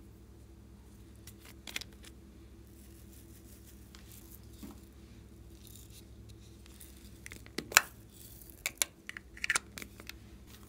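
Slime being handled: scattered sharp clicks and pops, the loudest about three-quarters of the way in and several close together near the end, over a faint steady low hum.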